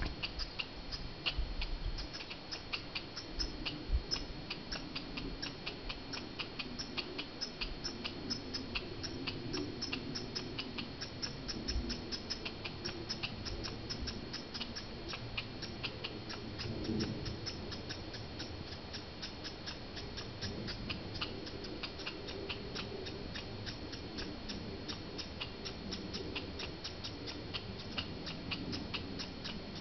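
Squirrel calling: a steady, rapid series of sharp, high ticks, about five a second, over a low rumble, with a few soft thumps in the first few seconds.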